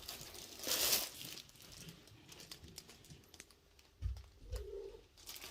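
Rustling and light clicks of things being handled, with a short rustle about a second in and two dull thumps near the end.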